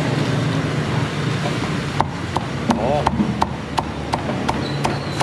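Cleaver chopping roast pork on a thick wooden chopping block: a run of sharp, even chops about three a second, starting about two seconds in, over a steady background hum.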